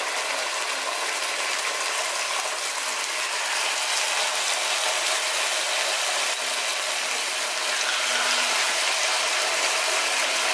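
Marinated chicken breast pieces sizzling in a lightly oiled grill pan: a steady frying sizzle that grows a little louder as more pieces are laid in.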